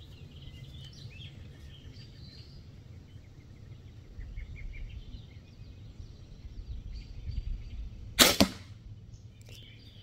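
Barnett crossbow firing a bolt into a foam block target: a sharp double crack about eight seconds in, the string's release followed a fraction of a second later by the bolt striking the target. Faint birdsong behind.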